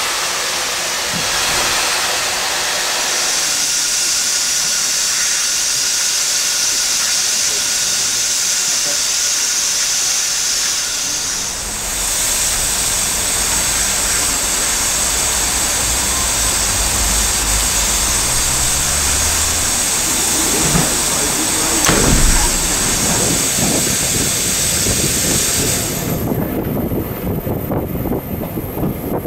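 Steam locomotive letting off steam in a loud, steady hiss; a little under halfway through a low rumble joins it, with a single sharp knock later on. Near the end the hiss cuts off suddenly, leaving the uneven rumble of the train running along the track.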